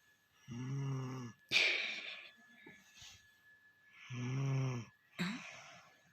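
A sleeping child snoring: two snores about three and a half seconds apart, each a low droning in-breath followed by a breathy out-breath.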